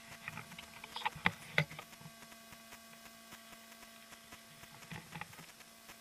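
Footsteps and gear crunching on loose stones and dry scrub: a few short, sharp crunches and clicks, loudest about a second and a half in, with a few more near the end. A steady electrical hum from the camera runs underneath.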